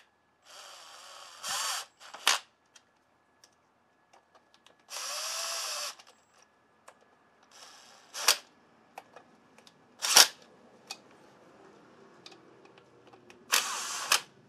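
Cordless drill/driver spinning down the clutch cover bolts in about four short runs of whirring, with loud, sharp clicks between them.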